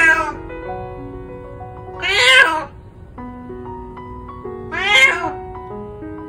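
Elderly calico cat meowing loudly three times, one call every two and a half seconds or so, the middle one the longest.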